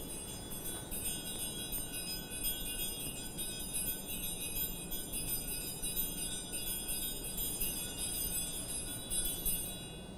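Altar bells (Sanctus bells) shaken in a continuous bright jingling ring that stops near the end. They are rung at the elevation of the consecrated host.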